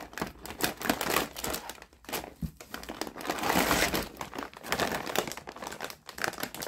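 Crinkling and rustling of snack packaging being handled, densest about three to four seconds in.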